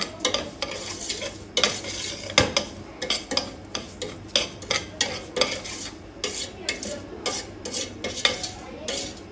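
A spoon stirring and scraping semolina in a pot as it dry-roasts toward golden brown, in short repeated strokes about two a second, with one louder knock against the pot about two and a half seconds in.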